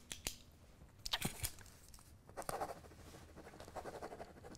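Quiet pen scratching on paper as a form is signed, with a few light clicks.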